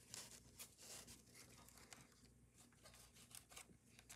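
Near silence with faint rustling and light ticks of paper being handled.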